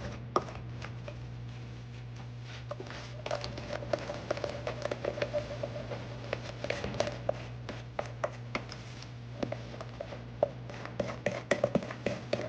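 A utensil mixing cake batter in a bowl: irregular small taps, clicks and scrapes against the bowl, over a steady low hum.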